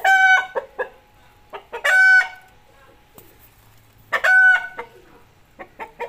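A chicken cackling: a few short clucks, then a loud, drawn-out squawk, repeated three times about two seconds apart.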